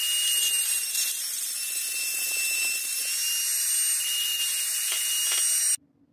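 Handheld rotary tool with a grinding-stone bit spinning at high speed: a steady high whine with hiss, with a few faint light contacts. It cuts off suddenly near the end.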